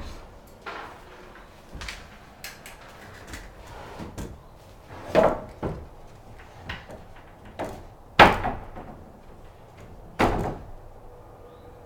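A few separate knocks and bangs, the loudest about eight seconds in, with others about five and ten seconds in and lighter clicks between them.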